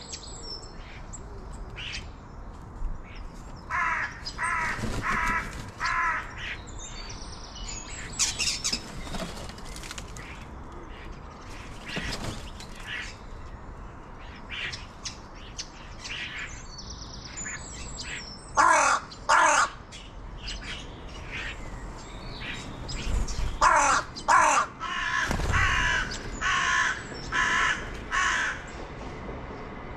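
A crow cawing in short runs of harsh calls: four about four seconds in, two near the middle and a longer run near the end. Small birds chirp high and faint between the runs.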